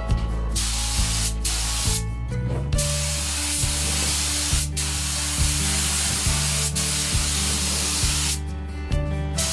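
Compressed-air paint spray gun hissing as it lays down clear coat: two short bursts, then a long pass of about five seconds with one brief break.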